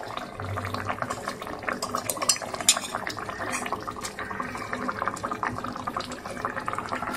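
Thick mustard-poppy fish curry simmering in a pot, a dense irregular patter of small bubbling pops, with a few louder clicks now and then.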